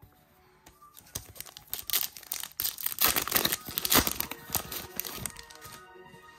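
Foil trading-card booster pack wrapper crinkling and tearing as it is ripped open by hand, a dense run of crackles starting about a second in and dying away near the end.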